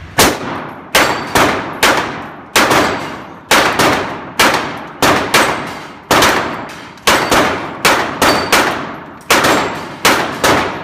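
Rapid pistol fire from two shooters at steel plate racks, one with a 9mm Glock 17: about twenty shots in ten seconds at an uneven pace, each ringing on through the indoor range. Steel plates clang as they are hit.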